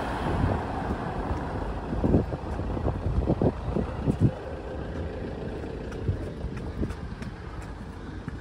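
Road traffic: a car passing close by at the start and fading away, leaving a low rumble of traffic. A few short low thumps come between about two and four seconds in.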